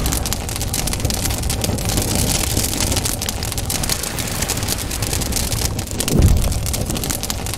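Sound effects of an animated logo intro: a dense crackling, fizzing noise over a low rumble, with a deep boom about six seconds in as an explosion goes off.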